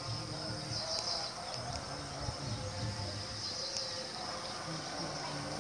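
Outdoor ambience: high-pitched chirping that swells in short bursts every two to three seconds, over a faint low murmur.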